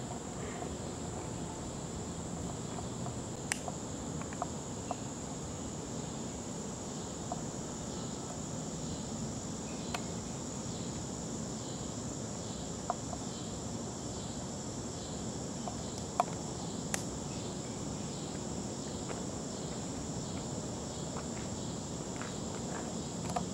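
Steady high-pitched chirring of insects, with a softer pulsing chirp beneath it. A few sharp clicks are scattered through.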